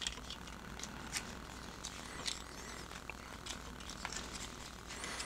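Faint, scattered small clicks and rustles of plastic action-figure parts being handled as a shoulder armor piece is fitted onto the figure.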